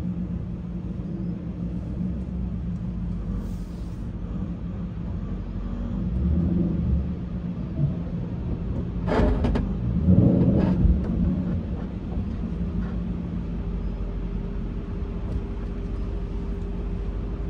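A lowered Ford Mustang 5.0 V8 idling steadily, heard from inside the cabin as the car creeps forward. About nine seconds in come two loud scraping knocks a second or so apart, as the car's lowered suspension arm scrubs over a raised yellow bump.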